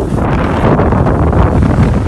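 Strong wind in a snowstorm buffeting the microphone, a steady loud rumble.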